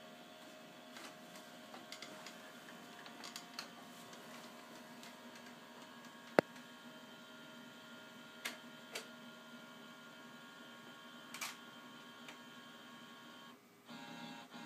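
Scanner running: its motor whines steadily in several tones, with scattered light clicks and one sharp click about six seconds in. Near the end the motor stops for a moment and starts again in a different pitch.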